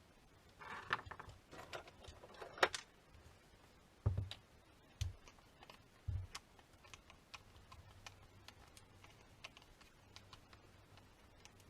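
Handling noises: a run of light clicks and rattles, then three dull knocks about a second apart, followed by faint scattered ticks.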